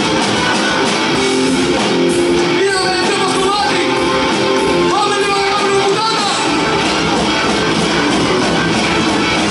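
Live metal band playing: distorted guitars, keyboards, bass and drums. A voice sings a line about three seconds in and another about five seconds in.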